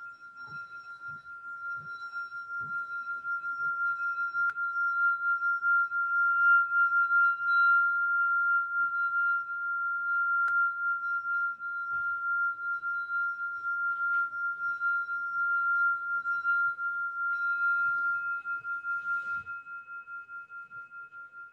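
Singing bowl sung by circling a mallet around its rim: one steady ringing pitch with faint higher overtones that swells over the first few seconds, wavers, and fades away near the end. It is rung to mark the end of a yoga class.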